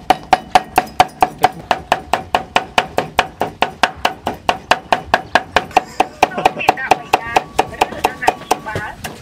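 Steel cleaver chopping fast and steadily on a thick round wooden chopping board, about five knocks a second, mincing red ants and red chilies.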